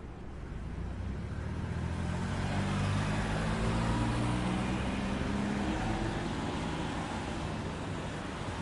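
A motor vehicle driving past on a city street: its engine and tyre noise swell, loudest about three to four seconds in, then fade, over steady traffic background.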